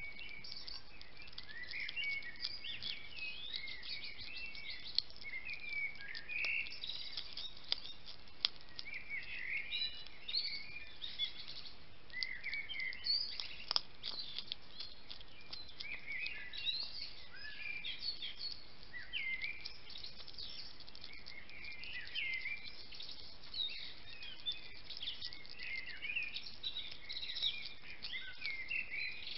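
European hedgehog eating dry food from a plate: a busy run of short, high-pitched smacks and crunches as it chews, with a few sharp clicks.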